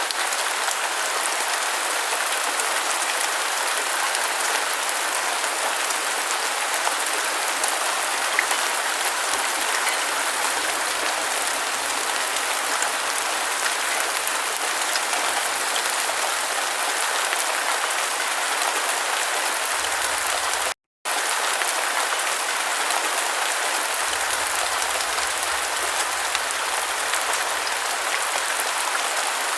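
Steady rain falling on a surface, an even hiss of many drops. It cuts out completely for a split second about two-thirds of the way through, then carries on unchanged.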